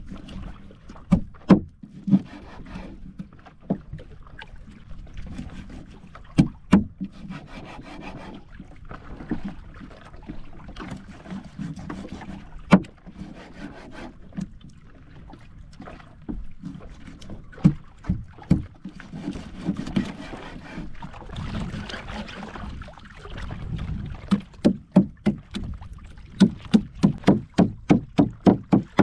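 Machete-style knife chopping fish on a wooden cutting board: scattered sharp knocks, then a quick run of chops at about four a second near the end, with softer slicing and scraping of the blade in between.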